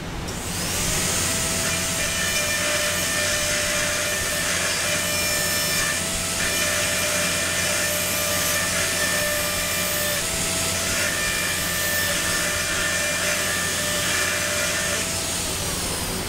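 Dental handpiece spinning an inverted cone bur against a model tooth, smoothing the axial wall of a Class V cavity: a steady whine with hiss. It spins up just after the start and winds down near the end.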